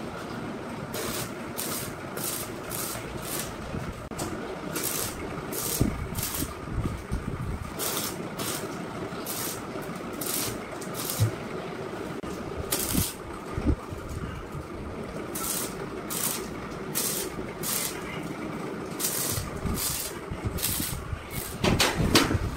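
Arc welder tack-welding steel square-tube crossbars into a frame: short crackling bursts of the arc, again and again with gaps between them, with a few sharp metal knocks and a clatter of the frame being handled near the end.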